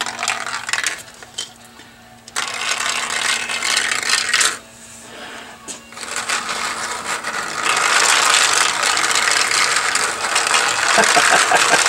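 Small steel balls clicking and rattling as they roll through a 3D-printed plastic marble run. The machine's Archimedes screw is turned by hand to lift them. It starts with scattered clicks, and the rattling becomes dense and louder from about eight seconds in.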